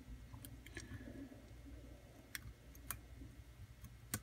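A few faint, sharp clicks spread over several seconds: a lock pick working the pins of a security-pinned pin-tumbler lock held in a false set under light tension. A low steady hum sits underneath.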